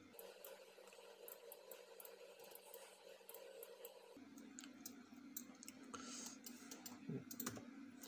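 Faint, scattered computer mouse clicks over low room tone, coming in small clusters, with a low background hum that returns about four seconds in.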